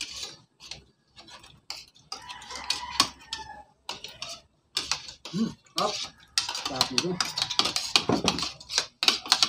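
Spoons and forks clinking and scraping on plates as several people eat, in irregular quick clicks that grow busier in the second half.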